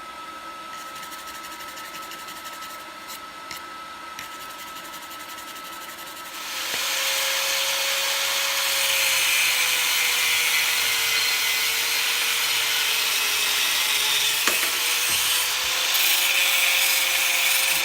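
A quieter steady hum, then about six and a half seconds in an angle grinder starts cutting through a steel rebar bar. It makes a loud hiss, and the motor's whine sags in pitch under load, then climbs back near the end.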